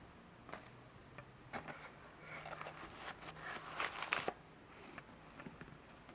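Crinkling and rustling of packaging as a sheet of foam wrap is peeled back off a belt in its box. A few scattered clicks come first, then a denser crinkle that is loudest about four seconds in and stops soon after.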